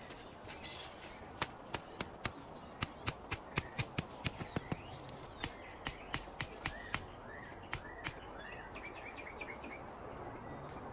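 Sharp, irregular snaps or clicks, two or three a second for several seconds, then a bird chirping a run of short rising notes over a steady high insect whine and background hiss.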